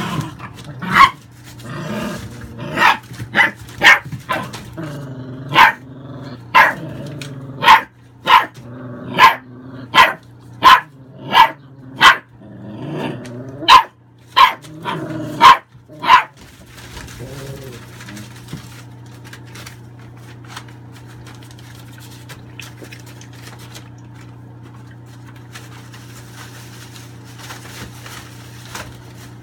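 American Staffordshire bully puppies play-fighting: a run of sharp, loud barks, about seventeen over the first sixteen seconds or so, with growling between them. Then the barking stops and only a steady low hum is left.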